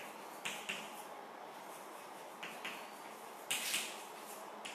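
Chalk writing on a blackboard: short taps and scratches as the strokes of the letters are made, with a louder, longer scratch about three and a half seconds in.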